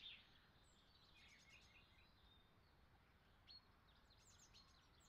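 Near silence: faint background hiss with a few very faint, short high chirps.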